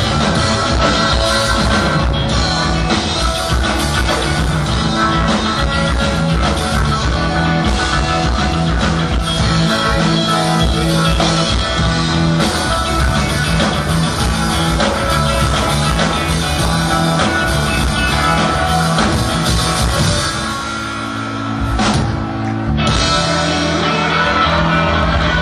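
Live rock band playing an instrumental passage on electric guitar, bass guitar and drum kit. About twenty seconds in the band briefly drops back and thins out, then comes in again at full strength.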